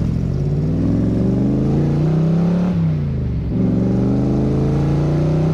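Ford small-block V8 of a Factory Five Cobra replica pulling hard under acceleration. The revs climb, drop at a gear change about three seconds in, then climb again.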